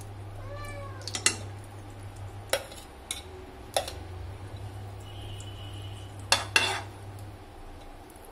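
A metal spoon scraping and clinking against the inside of a steel pressure cooker while stirring melting ghee into oil, with a few sharp knocks of the spoon on the pot.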